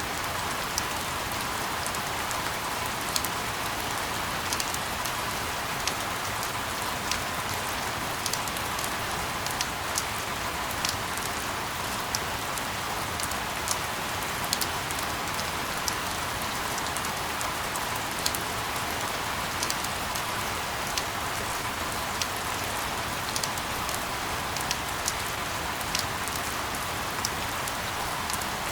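Steady rain falling: an even hiss with scattered sharp ticks of individual drops striking a surface.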